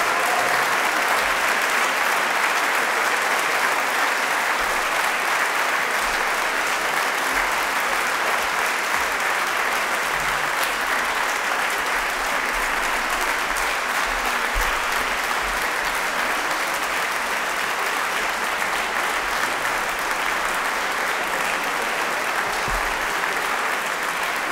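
Concert audience applauding steadily, a dense, even clapping.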